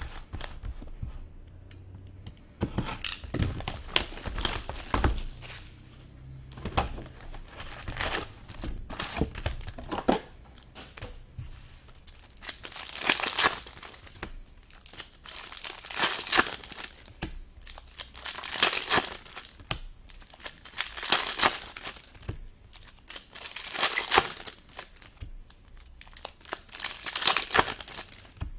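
Wrappers of hockey card packs being torn open and crinkled one after another. Scattered crackles come at first, then from about twelve seconds in a burst of tearing and crinkling comes about every two to three seconds.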